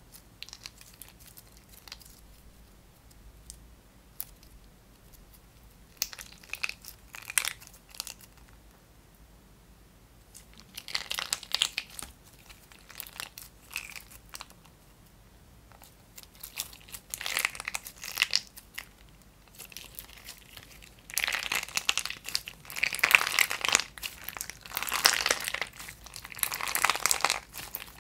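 Clear slime being stretched, pressed and pulled apart by hand, giving off crackling, crinkling pops. It starts with a few faint clicks, comes in short bursts, then grows denser and louder over the last several seconds.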